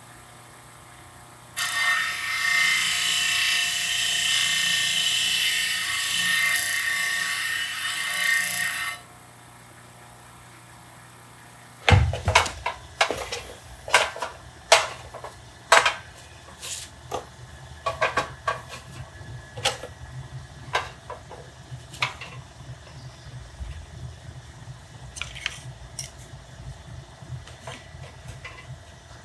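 A power tool runs on wood for about seven seconds, starting and stopping abruptly. After a short pause comes a run of sharp, irregular knocks and clicks as wooden pieces are handled, over a low hum.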